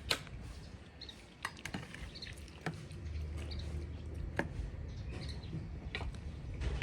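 Cats eating wet fish-and-rice food: irregular small clicks and smacking sounds of lapping and chewing. A low rumble comes in about three seconds in.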